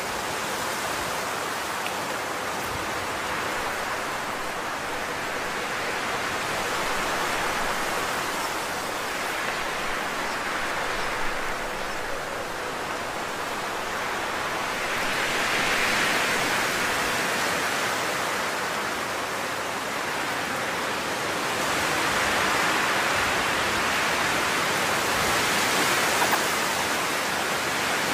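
Steady rushing noise with no distinct events, swelling and easing every several seconds.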